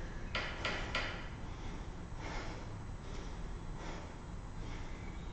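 A woman breathing in soft, faint puffs while doing a seated twisting core exercise, with a few light clicks in the first second.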